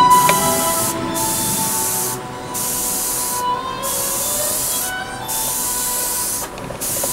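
Sata Graph3 0.2 mm airbrush spraying in short strokes: a steady hiss of air and paint that stops briefly between strokes, about every second and a half.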